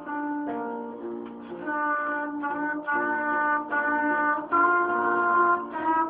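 Trumpet playing a melody of held notes, with piano accompaniment.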